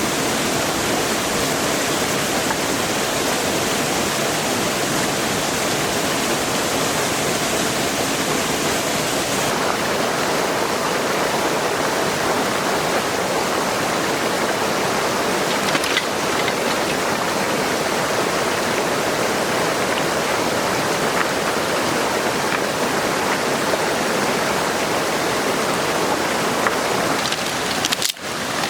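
Steady rushing water noise. Its higher hiss eases about ten seconds in, and it breaks off for an instant near the end.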